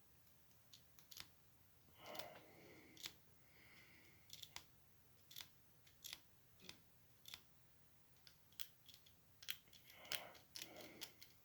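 Faint, scattered little clicks and scrapes: grime being scratched off the front wheel of an HO scale model diesel switcher, with a couple of slightly longer scraping passes about two seconds in and near the end.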